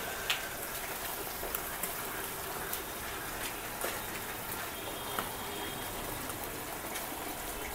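Marinated alfaham chicken sizzling over charcoal in wire grill baskets: a steady sizzling hiss with scattered small crackles.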